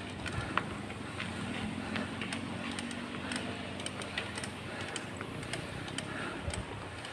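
Small motorcycle engine running as the bike climbs a steep hill, with a faint low hum and scattered small clicks and rattles.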